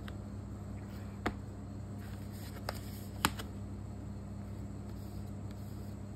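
Light handling noise from a booklet and a power adapter being moved about on top of a laptop. Three short sharp clicks come about a second in, a little before the middle, and half a second after that, over a steady low hum.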